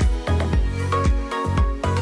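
Background music, electronic with a steady beat and deep bass notes.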